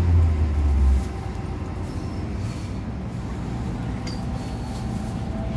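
Inside an MTR M-Train electric multiple unit coming to a stop at a platform: a strong low hum from the train's drive and braking cuts off about a second in, leaving a steady rumble in the car as it stands.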